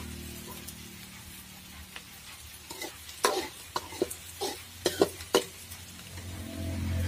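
Metal ladle stirring sliced onions frying in oil in a metal kadai, scraping and knocking against the pan in a quick run of strokes between about three and five and a half seconds in, over a faint sizzle.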